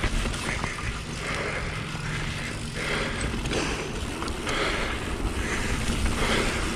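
A YT Capra AL mountain bike's tyres rolling fast over a packed dirt trail, with wind rushing over the chin-mounted camera's microphone. The hiss swells and eases every second or two through the turns, and a few knocks from the bike come in the first second.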